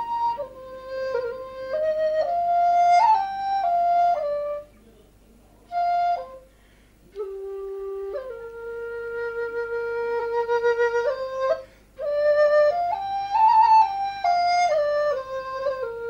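Background music: a flute melody of held notes stepping up and down, with two short pauses around the middle.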